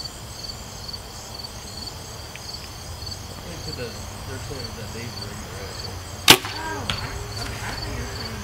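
Compound bow shot about six seconds in: one sharp crack as the string is released, with a brief ringing after it. Crickets chirp in a steady pulsing rhythm throughout.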